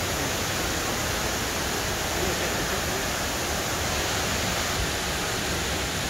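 Steady rush of falling water from the Rain Vortex, the indoor waterfall at Jewel Changi Airport.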